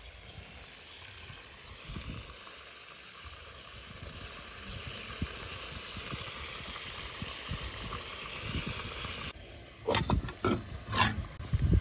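Pot of food sizzling steadily over a wood fire. About nine seconds in this gives way to a few clattering knocks of a ceramic bowl against an aluminium pot.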